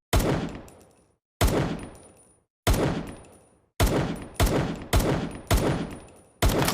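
Makeshift sound effect imitating M1911 pistol shots: eight sharp bangs, each trailing off over about a second, the first four slow and evenly spaced, the rest coming faster.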